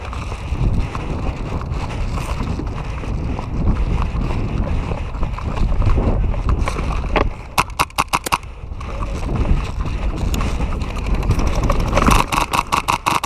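Airsoft electric rifle firing rapid bursts of sharp cracks, about ten a second: one burst of about a second near the middle and a longer one near the end. A steady low rumble runs underneath throughout.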